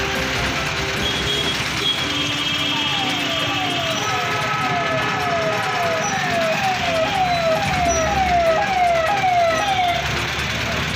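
Police vehicle siren sounding a rapid falling wail, repeated about twice a second, starting a few seconds in and stopping near the end, over vehicle engine noise.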